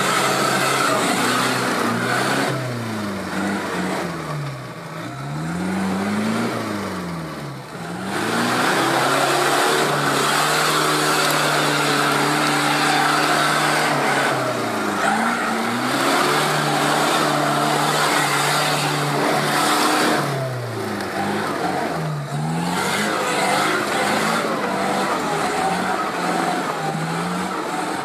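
An off-road 4x4's engine working under load, its pitch falling and rising again several times as the revs drop and pick up, with steady stretches between.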